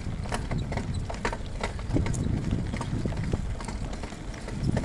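Bicycle rolling along a damp dirt trail: a steady low rumble with irregular sharp clicks and rattles.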